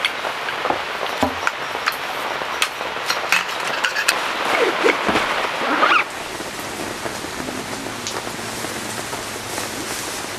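Heavy rain falling steadily, with many scattered sharp taps of drops. About six seconds in it drops abruptly to a quieter, even rain.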